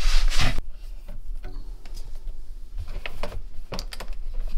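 Handling noise from a power strip and its cables being fitted under a desk: a short loud rustle at the start, then scattered light clicks and knocks of plastic and cable against the desk frame, with more of them near the end.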